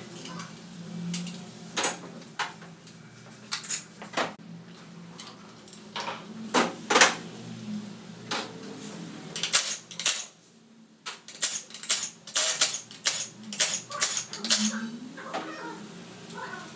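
Loose steel bolts and small parts clinking and clattering against each other and the aluminium casing of a Renault JF017 CVT gearbox as it is taken apart by hand: scattered sharp clinks, with a quick flurry of them in the second half.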